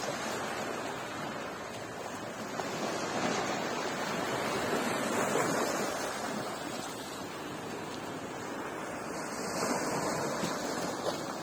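Sea surf washing onto a beach: a steady rush of waves that swells twice, most strongly a few seconds in and again near the end, with some wind on the microphone.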